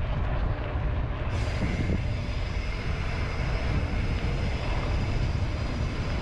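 Mountain bike rolling along a dirt trail: a steady rumble of tyres and wind on the microphone, joined by a brighter hiss from about a second in.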